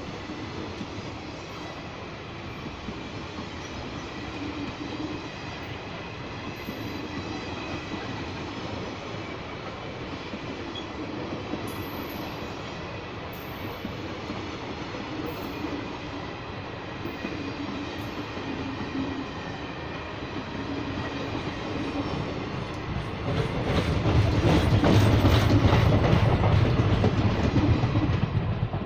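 Indian Railways passenger coaches rolling past close by: a steady rumble of wheels on rail. About three-quarters of the way through it grows louder, with a rapid clatter of wheels over the rail joints, then eases off at the end.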